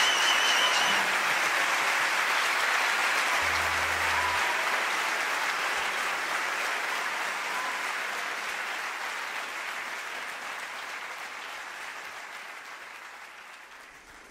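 Concert audience applauding, the clapping fading away steadily.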